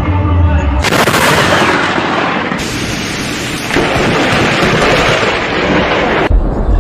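Loud thunder from a close lightning strike: a harsh crash of dense noise starts abruptly about a second in, eases a little about three seconds in, and cuts off abruptly near the end.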